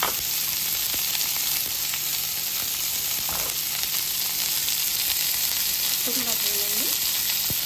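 Chopped onion frying in hot oil in a pan, with a steady sizzle, and a few light clicks of stirring.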